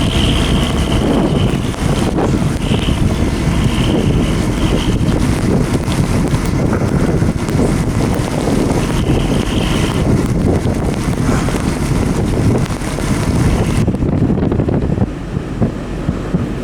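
Chevy pickup truck driving through deep snow drifts, its engine running under a steady rush of noise with wind buffeting the microphone. The high hiss drops away about fourteen seconds in.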